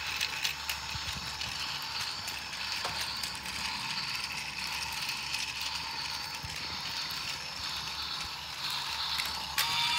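Battery-powered Thomas the Tank Engine toy train running on plastic track: a steady whirring of its small motor and gears with fine clicking from the wheels, a little louder near the end.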